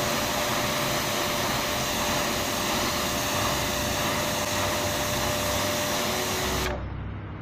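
High-pressure washer jet hitting a cloth rag on wet paving stones, a loud steady hiss of spray. The spray cuts off suddenly near the end, leaving a quieter low rumble.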